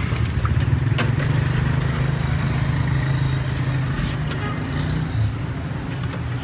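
Steady low hum of a motor vehicle engine running, thinning after about five seconds, with a few light clinks of a metal ladle against a metal pot.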